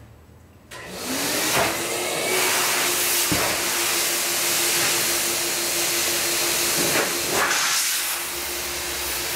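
Two-stage MetroVac electric blower switched on about a second in to inflate a culvert plug: a loud steady rush of air with a motor whine that rises briefly as it spins up, then holds steady.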